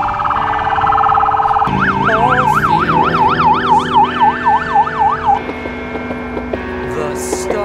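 Police motorcycle siren: a fast warble that switches to a quicker rising-and-falling yelp, about three sweeps a second, then stops about two-thirds of the way through. Background music plays underneath.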